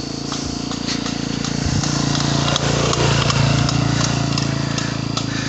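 Motorcycle engine running steadily while riding along, with a second motorcycle passing close by, swelling to its loudest about three seconds in and then easing off.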